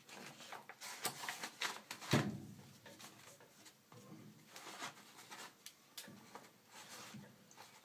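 Hand staple gun firing staples through sarking into a timber wall frame: several sharp clacks, the loudest about two seconds in, with the sarking sheet rustling as it is held and smoothed between them.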